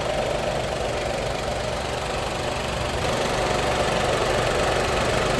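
Nissan Magnite's three-cylinder petrol engine idling steadily. It is running again after its water-damaged airbag control module (SDM), which had kept it from starting, was replaced.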